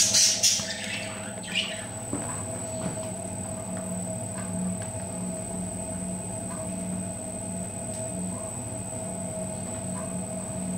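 Pottery wheel motor humming steadily as the wheel spins. Wet clay squelches and slides under the potter's hands, loudest in a few wet bursts in the first two seconds.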